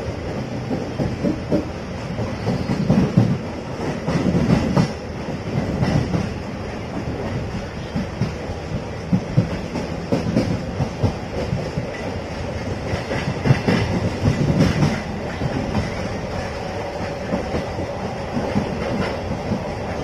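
Train running on rails, heard from inside a passenger coach through an open barred window: a continuous running noise with the wheels clattering irregularly over the rail joints, louder in stretches.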